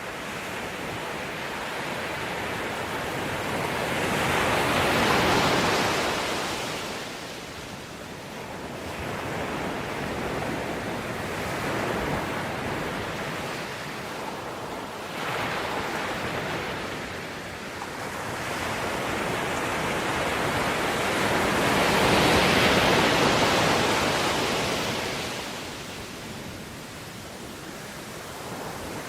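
Ocean waves breaking on a shore, a steady wash of surf that swells to two large breakers, about five seconds in and again near twenty-two seconds, with smaller ones between.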